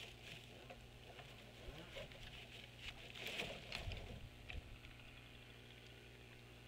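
Faint outdoor ambience over open water: a low steady hum with scattered faint high chirps and ticks, busiest about three to four seconds in.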